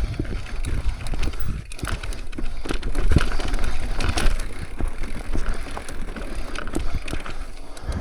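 Mountain bike riding over rock: irregular knocks and rattles from the tyres, chain and frame, over a steady low rumble.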